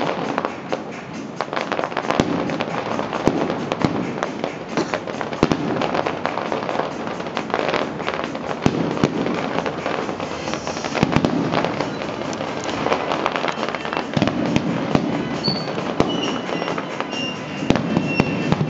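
Aerial fireworks display: a dense, continuous barrage of bangs and crackling shell bursts.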